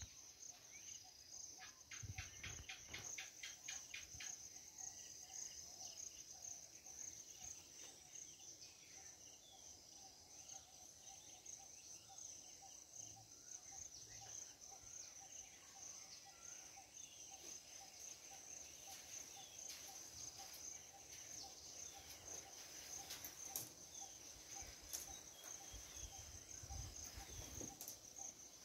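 Faint, steady high-pitched chorus of insects, over a lower pulsing insect call at about three pulses a second, with scattered bird chirps. A quick rattling run of clicks comes about two seconds in, and a few low thumps come near the start and near the end.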